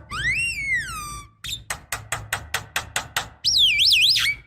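Javan myna calling: one long whistle that rises and then falls, a fast run of about a dozen sharp clicks, then a quick wavering warble.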